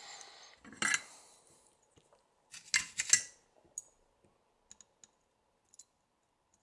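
Hands handling a soldering iron and solder wire on a workbench: rustling, a brief louder clatter about three seconds in, then a few faint ticks.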